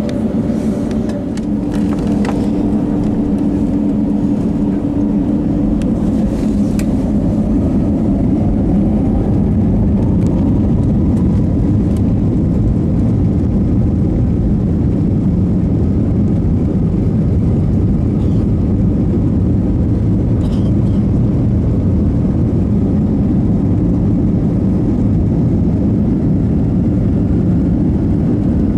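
Steady low rumble inside the cabin of an Airbus A321neo as it taxis, from its engines and the airframe rolling over the taxiway. A few faint humming tones fade out in the first second or so.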